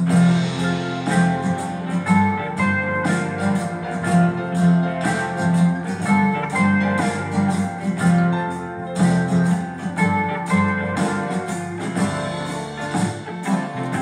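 Instrumental background music, a steady run of pitched notes.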